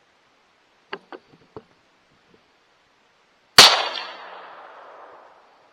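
A single gunshot at hogs, sharp and loud, its report rolling away for about a second and a half. A few faint clicks come a couple of seconds before it.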